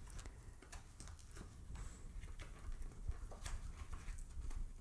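Faint, scattered taps and scrapes of a cardboard box insert being handled and slid out of its box.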